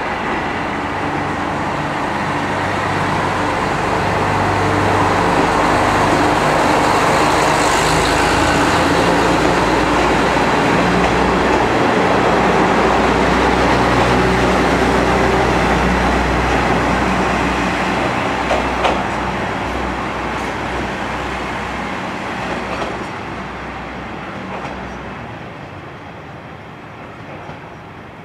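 A Kanto Railway KiHa 310-series diesel railcar pulling out of the station. Its engine and wheel noise builds to a peak as the cars pass close by, with a few clicks on the rails later, then fades as the train pulls away.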